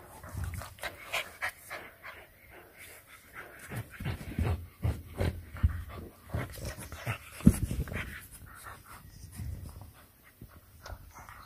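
English Bulldog puppy panting hard in irregular short bursts while nosing and digging into a plush dog bed to hide a bone, with one sharper, louder burst past the middle.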